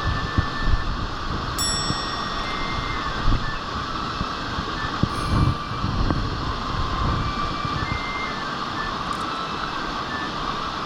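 Mountain stream water rushing steadily over rocks, with a few dull knocks and bumps close to the camera.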